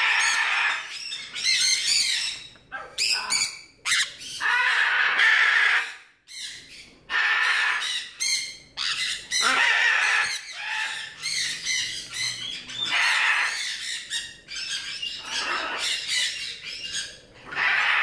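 Parrots squawking: harsh, loud calls repeated one after another, with short pauses between them.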